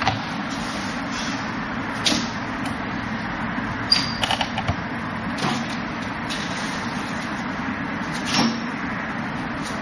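Forearms and hands knocking against the wooden arms and trunk of a Wing Chun wooden dummy: scattered sharp knocks, with a quick run of several just after four seconds, over a steady hiss.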